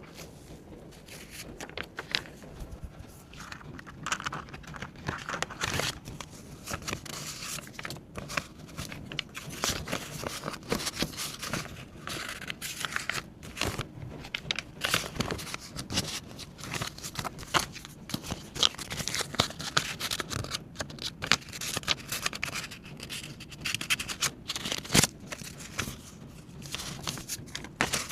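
Paper banknotes and paper savings supplies being handled: continuous rustling and crinkling, with many small sharp clicks and taps.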